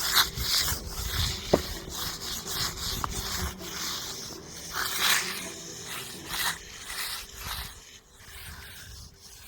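Steel hand trowels scraping and rubbing over a setting concrete slab in irregular strokes, the final finishing pass that works up cream on the surface.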